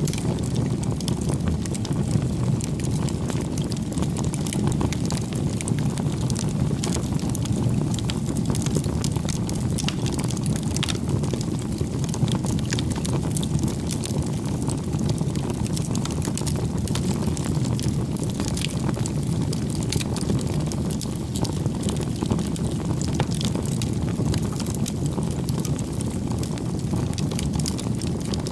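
Wood fire burning: a steady low rush of flames with frequent small crackles and pops.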